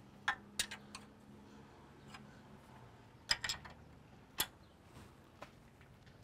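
Steel 19 mm wrench clinking against nuts and the corn head's metal stalk roll mounts as nuts are loosened. A few sharp, irregular metal clicks come in a quick cluster near the start and again around three to four and a half seconds in.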